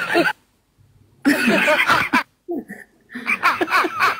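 A person laughing in several spells with short pauses between them, with quick repeated rises and falls in pitch.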